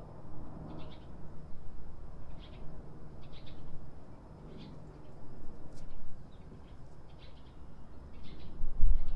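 A small bird chirping in short clusters of calls, one every second or so, over a steady low background rumble. A much louder low rumble starts near the end.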